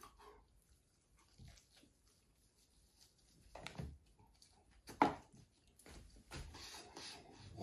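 A man's short pained noises while eating a ghost-pepper hot wing, reacting to the chili burn. They come as a few short outbursts from about three and a half seconds in, the loudest about five seconds in, after a near-silent start.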